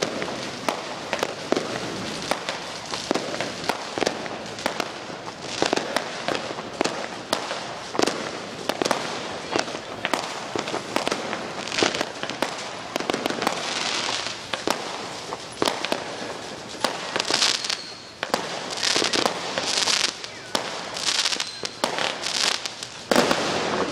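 Many fireworks and firecrackers going off, a steady run of sharp bangs and crackles. Bursts of hissing join in through the second half.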